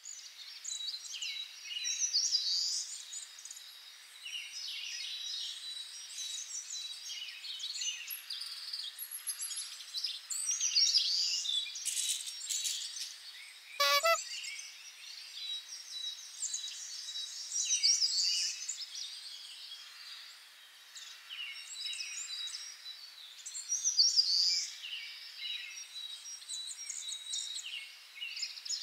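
Many birds chirping and calling, overlapping throughout. About halfway through, a single whistle-like glide falls from high to low.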